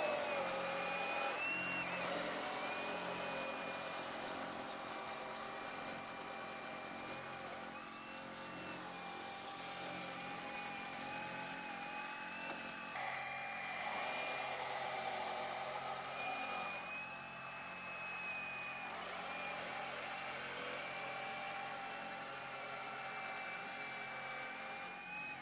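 Radio-controlled scale model Liebherr 576 wheel loader working in sand: a steady motor whine that shifts a little in pitch as it drives and works the bucket.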